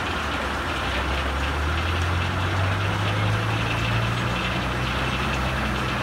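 Engine driving a belt-driven sawmill, running steadily; its hum rises in pitch about two seconds in, then holds.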